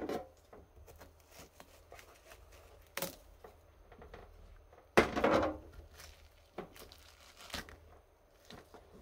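Kitchen knife cutting through a raw kabocha pumpkin on a plastic cutting board: a few scattered knocks and a loud crunching cut lasting about half a second, about five seconds in, with smaller cuts after it.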